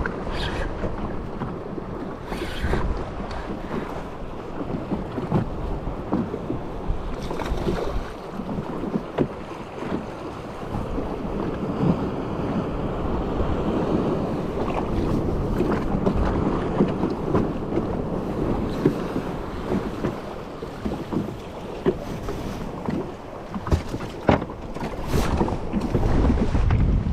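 Wind buffeting the microphone over choppy water lapping and slapping against a small boat's hull, with a few sharp knocks and splashes scattered through.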